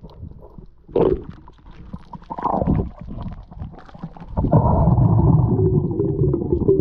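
A diver's underwater grunting, muffled by the water: short low grunts about one and two and a half seconds in, then a long wavering low growl from about four and a half seconds on. It is the grunting call spearfishers make on the bottom to draw gag grouper in.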